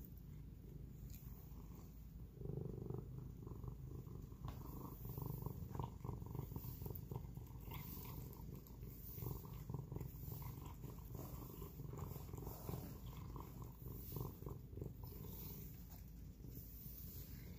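Domestic cat purring steadily while being stroked, with small wet clicks and smacks of it licking and eating paté wet food from a bowl.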